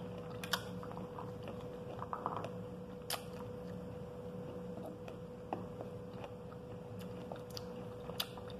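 A person chewing a mouthful of pomegranate arils, seeds and all, with a few sharp clicks of a metal spoon against a glass plate.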